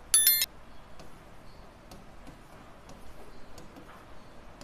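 A short, bright electronic ding from the subscribe-button animation in the first half second, then faint scattered ticks of a marker writing on a board.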